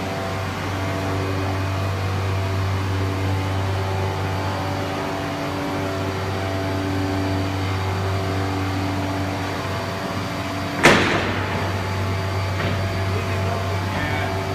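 COSMEC FOX CNC nesting machine running with a steady hum made of several fixed low tones. Near the end there is one sudden loud rush of noise that fades within about half a second.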